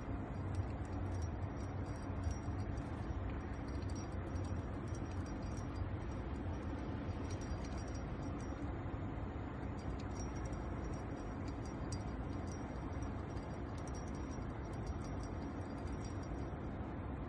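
Steady low outdoor background rumble with faint light clinks now and then.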